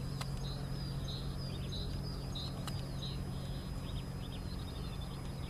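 Small birds chirping in quick, repeated calls over the steady low drone of a twin-engine turboprop on its landing approach.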